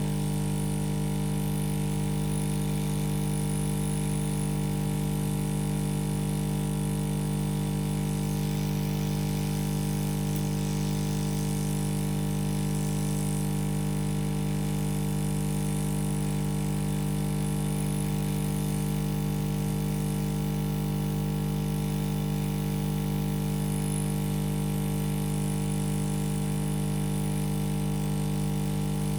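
Hot air rework gun running with a steady, unchanging hum as it heats a shorted MOSFET to desolder it from the motherboard.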